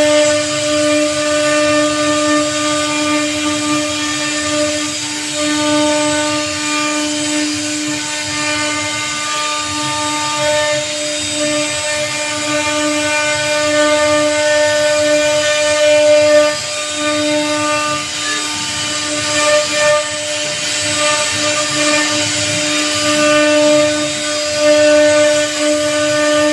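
CNC router spindle running at a steady pitch, its bit cutting into teak as it carves a relief panel; the whine holds steady while the cutting noise swells and dips as the bit moves through the wood.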